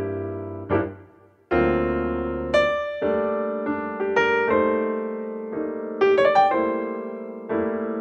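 Background piano music: a melody of single notes and chords, each struck note ringing and fading.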